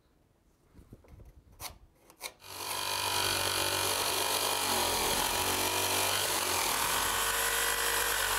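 A few light clicks, then about two and a half seconds in a reciprocating saw starts and runs steadily, its blade cutting through the wooden stringer of an attic ladder to trim it to length.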